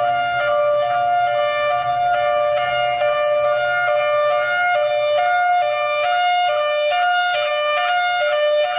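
Tornado warning siren sounding its hi-lo tone, switching back and forth between two steady pitches roughly every half second.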